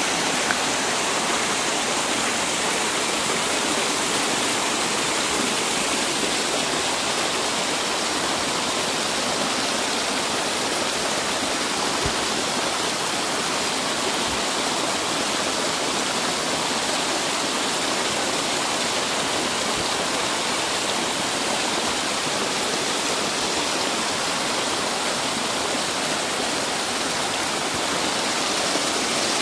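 Steady rushing of a mountain creek cascading down granite slabs at the head of a waterfall, a constant even white-water noise.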